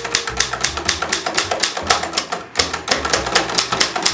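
Keys of a Stoewer Record typewriter being struck in a fast, even run, several strikes a second, with a brief pause about two and a half seconds in.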